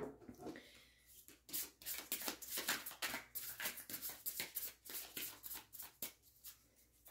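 Tarot deck being shuffled by hand in an overhand shuffle: the cards flick and rustle against each other in quick, uneven strokes. A sharp tap comes right at the start, and the shuffling stops about six seconds in.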